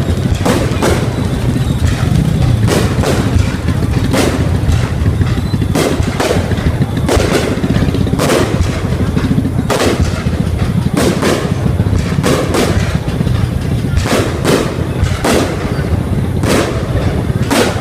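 Fireworks bursting in a continuous display: sharp booms about one to two a second at irregular spacing, over a steady low rumble.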